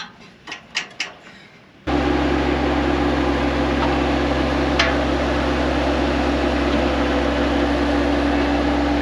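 A few light clicks, then about two seconds in the engine of a bucket-equipped machine comes in abruptly and runs at a steady speed with a constant low drone for the rest of the time.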